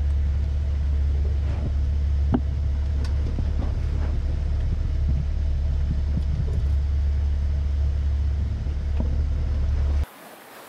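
Steady low rumble aboard a sailing yacht under way, with a few light clinks of a spoon against a soup bowl. The rumble drops off abruptly near the end.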